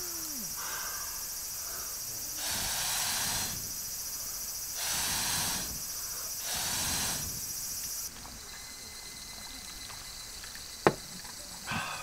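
A child blowing three long breaths through a fire-blowing pipe into a campfire, each a rushing puff about a second long, over a steady high insect hiss. Near the end a single sharp click.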